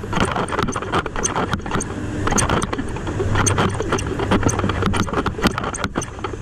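Footsteps on a concrete sidewalk with rattling and jingling from gear carried on the walker, over the low engine hum of a city bus, which grows stronger about three seconds in.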